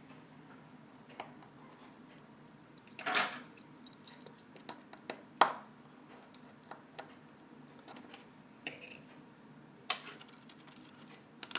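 Small metallic clicks and taps of a precision screwdriver and tweezers working inside an iPhone 4S as two small screws are taken out, with a short scrape about three seconds in and a few sharper clicks later.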